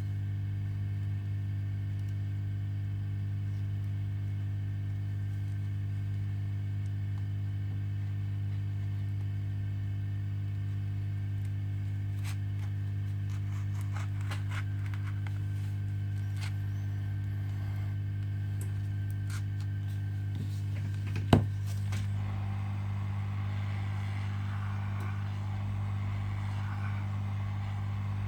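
Steady low electrical hum, with a few faint clicks and one sharp click about three quarters of the way through.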